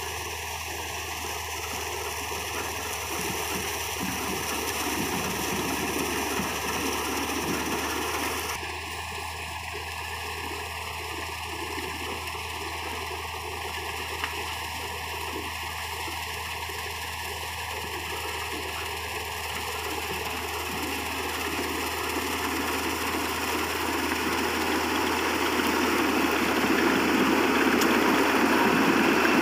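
Laverda M132 combine harvester working in a cereal crop: a steady rush of engine and threshing machinery. It grows louder near the end as the machine comes close. The title names the sound as a loose feeder house chain.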